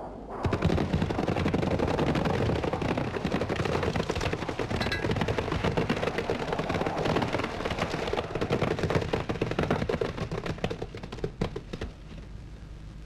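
Battle sound effects: a dense, rapid crackle of machine-gun fire and blasts that starts suddenly about half a second in and dies away near the end into a steady low rumble.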